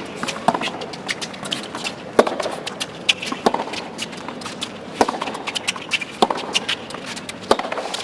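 A tennis rally on a hard court: sharp racket strikes on the ball about every second to second and a half, with ball bounces between, over low steady crowd noise.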